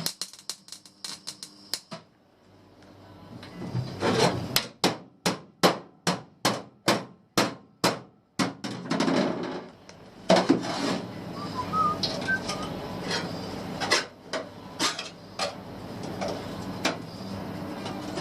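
Hammer blows on metal: a quick patter of light taps, then a run of about ten sharp strikes roughly three a second. After that comes a steady rough noise with a few knocks.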